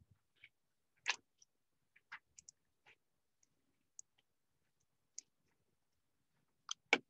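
Scattered clicks of a computer mouse, about ten at uneven intervals, with a louder pair close together near the end.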